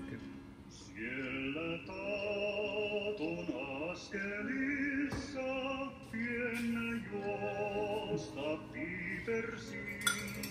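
Background music: a man singing a song in long, wavering held notes over a steady accompaniment.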